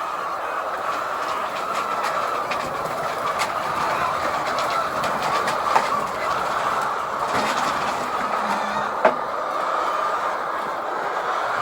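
Steady, dense din of a large flock of white laying hens in a poultry shed, with scattered faint clicks and two sharper knocks about six and nine seconds in.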